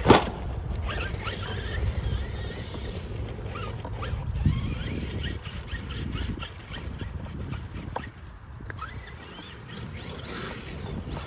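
Electric 1/5-scale Losi DBXL-E 2.0 RC buggy driving on soft dirt, its motor giving short rising whines over a low rumble. There is a sharp knock at the very start and another about four and a half seconds in, typical of the buggy landing or hitting ground.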